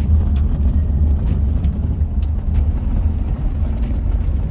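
Steady low rumble of a moving vehicle heard from inside the cabin, with a few brief clicks or rattles scattered through it.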